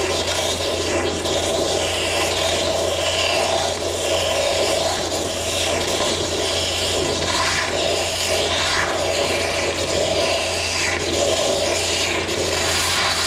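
Exothermic cutting rod (oxygen lance) burning through the steel axle pivot pin of an International 574 tractor: a loud, steady rushing hiss of oxygen and burning metal.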